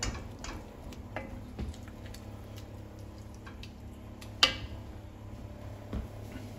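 Wooden spatula stirring thick chicken filling in a white enamelled pan, with scattered light ticks and scrapes and one sharp knock about four and a half seconds in.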